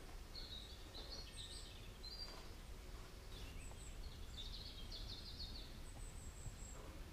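Birds singing faintly: several short chirping phrases, a rapid trill from about four to six seconds in, and a few thin high notes, over a low steady rumble.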